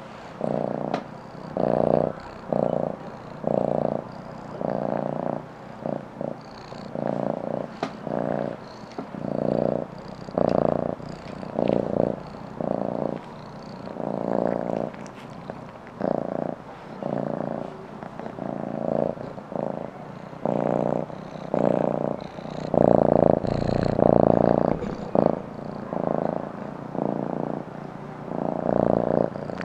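Domestic cat purring close up, the purr swelling and fading with each breath in and out, about once a second.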